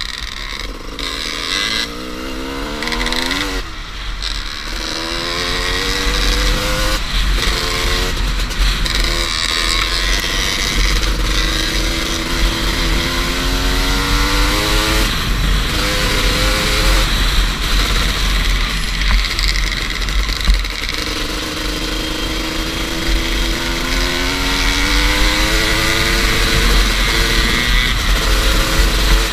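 Two-stroke dirt bike engine (Suzuki RM250) at full throttle, its pitch climbing through gear changes and then in long slow rises at speed. Heavy wind buffeting on the microphone adds a deep rumble throughout.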